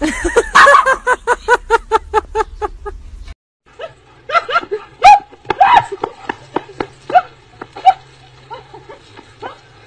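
A dog barking rapidly, about five sharp barks a second, for about three seconds. After a short break comes a run of irregular short pitched calls over a low hum, loudest about halfway through.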